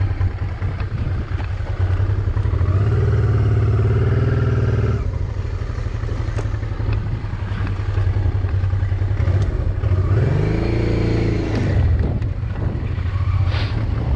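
Honda motorcycle engine running while riding. The engine note pulls up twice: once about three seconds in, and again around ten seconds, when the pitch climbs and then falls away.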